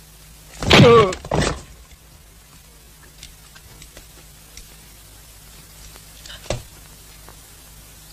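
A short, loud vocal cry or exclamation about a second in, then the steady low hum and hiss of an old film soundtrack with a few faint clicks and a single thud a little after six seconds.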